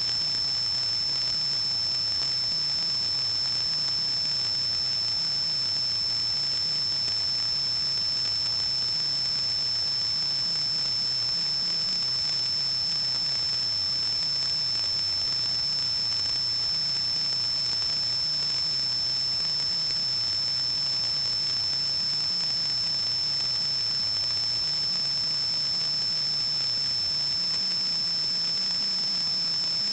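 A steady high-pitched whine over constant hiss, with a faint low hum that wavers slowly in pitch.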